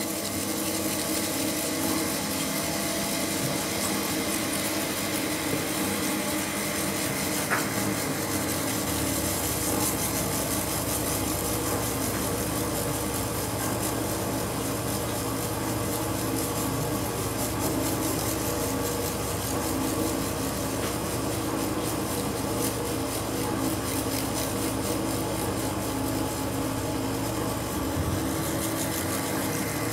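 Ambient drone music: a sustained chord of several steady tones under a hissing, rubbing texture, joined by a deep low drone about nine seconds in that drops out near the end.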